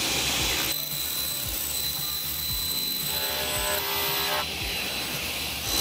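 Table saw running and ripping a sheet of 1-inch extruded-polystyrene foam board: a steady high motor whine with the hiss of the blade cutting through the foam.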